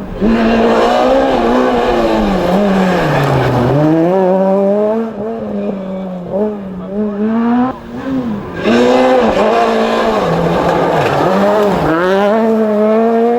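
Rally car engine at high revs, its pitch dropping deeply about three and a half seconds in as it slows, then climbing again. After a quieter stretch in the middle, hard revving with rapid rises and falls in pitch returns about nine seconds in.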